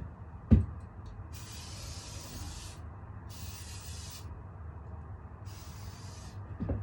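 Aerosol can of silicone spray lubricant hissing in three short bursts, sprayed onto a wheelchair tire and hub to ease the tire on. A sharp knock comes about half a second in.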